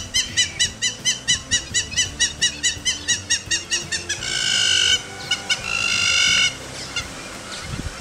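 Hamerkop calling: a fast run of short, sharp nasal yips, about four or five a second, then two longer drawn-out notes starting about four and about five and a half seconds in.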